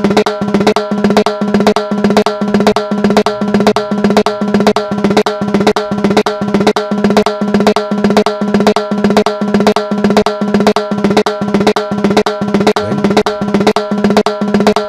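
A timbal playing a looped pattern of evenly spaced strikes, about three a second, each with a ringing pitched tone. The drum was recorded with two microphones, and these are played together without phase alignment, so the hits carry whatever phase smearing comes from the distance between the mics.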